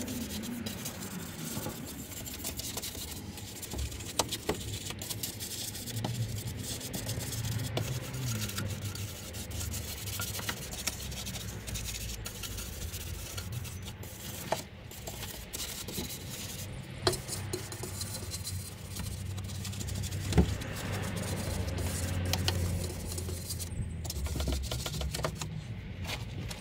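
Steady rubbing and scrubbing noise with a few sharp clicks, from degreaser being worked over a car's engine bay.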